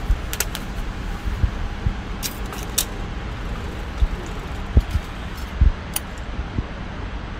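Street ambience: a steady low rumble of traffic with thumps of wind on the microphone, and a few short, sharp metallic clicks and jingles.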